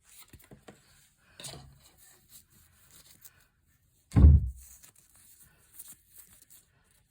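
Light rustling and scattered clicks, with one loud, deep thump about four seconds in.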